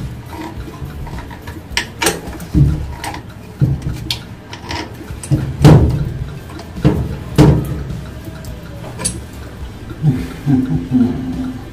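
Metal wrench knocking and clicking against a threaded metal pipe fitting as it is gripped and turned. A series of irregular sharp knocks, the loudest about halfway through.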